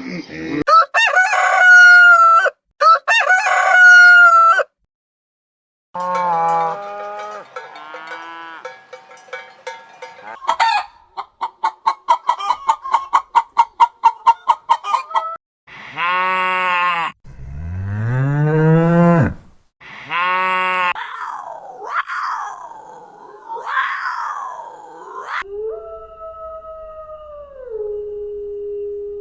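A run of farm animal calls, one after another with short gaps: chickens crowing, a rapid series of clucks that grows louder, and a cow mooing.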